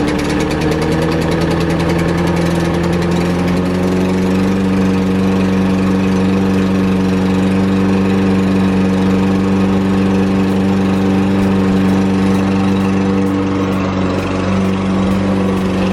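Push lawn mower's small gasoline engine running, speeding up over the first few seconds and then holding a steady pace, on a test run with its newly replaced blade.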